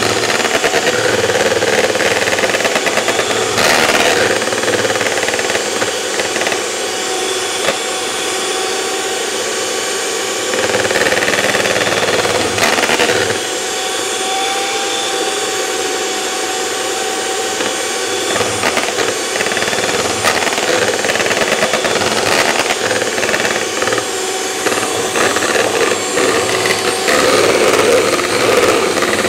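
Electric hand mixer running steadily, its twin beaters whisking egg whites in a bowl.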